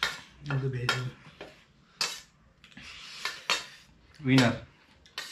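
A metal spoon and fork clinking and scraping against stainless steel plates while eating noodles, several separate clinks. Two short vocal sounds break in, the louder one about four seconds in.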